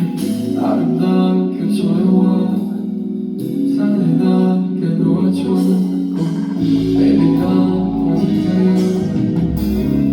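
A live pop song: a singer's voice over guitar and band backing, with the bass coming in more strongly about two-thirds of the way through.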